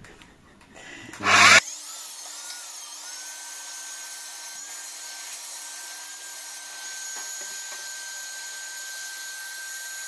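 Canister vacuum cleaner switched on with a short loud burst about a second and a half in, its motor whine rising briefly and then running steady as the floor nozzle is worked over the floor.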